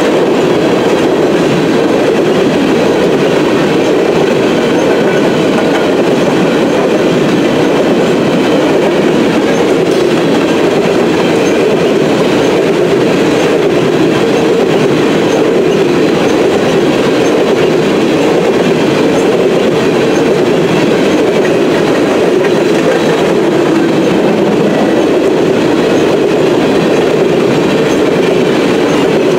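Coal hopper cars of a unit coal train rolling past close by: a steady, unbroken rumble of steel wheels on rail.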